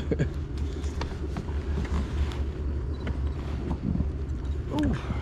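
Steady low motor hum, with light clicks and knocks from a fishing rod and line being handled.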